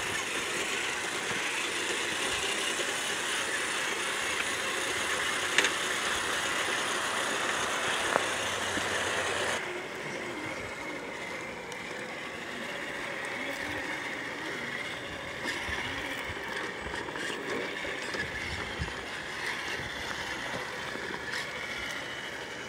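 Small electric motors and geared drivetrains of 1/10-scale RC rock crawlers (Traxxas TRX-4 and Axial SCX10 II) running as the trucks crawl over rock and gravel. There are two sharp knocks, about five and a half and eight seconds in, and the high hiss drops away abruptly about ten seconds in.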